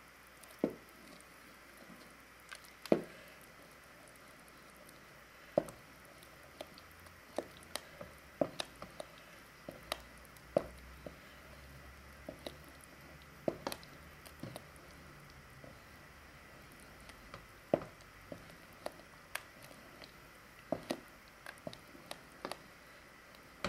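Wooden spoon stirring thick mashed potato into broth in a metal pot: wet squelching, with irregular knocks of the spoon against the pot.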